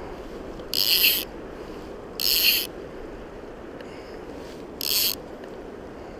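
Fly reel's click-and-pawl drag buzzing as line is pulled off it: three short pulls, each about half a second, the third a little shorter.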